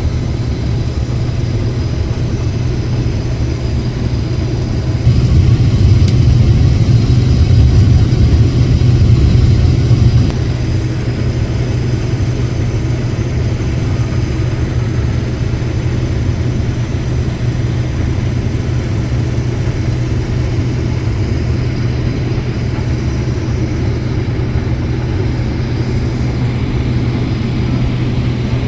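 Harvest machinery engine running steadily under load, a low drone that grows louder for about five seconds from about five seconds in, then settles back to its earlier level.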